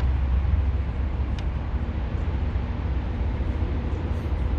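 Steady low rumble of traffic from a nearby highway, with one light click about a second and a half in.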